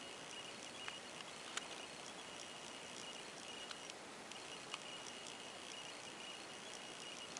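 Faint steady hiss carrying a thin high-pitched whine, with a few small clicks scattered through it.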